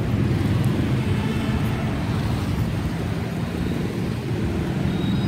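Busy street traffic, mostly motorbikes and scooters: a steady drone of small engines passing on the road.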